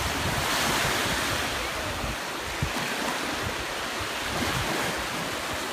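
Small surf breaking and washing up the shallow shore, swelling a little about a second in, with wind buffeting the microphone.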